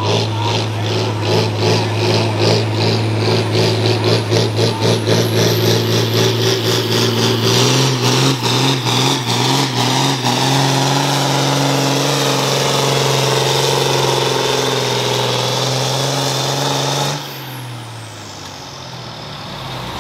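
John Deere 4440's turbocharged six-cylinder diesel pulling hard against a weight-transfer sled, its exhaust note pulsing rapidly for the first several seconds, then running steadily at high revs with a high whine. About 17 seconds in the throttle is cut at the end of the pull: the engine drops sharply to a quieter, lower note and a high whistle falls away.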